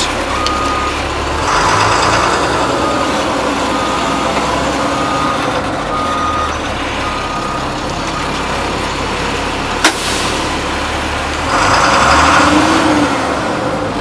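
Backup alarm on a 2004 Blue Bird International 3800 school bus beeping steadily, about one beep every three-quarters of a second, as the bus reverses, over its 7.6 L DT466E diesel engine running. The beeping stops about eight seconds in; a sharp click near ten seconds and a louder rushing noise around twelve seconds follow.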